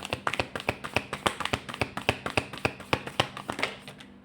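Oracle card deck being shuffled by hand: a rapid run of crisp card clicks and slaps, several a second, which stops shortly before the end.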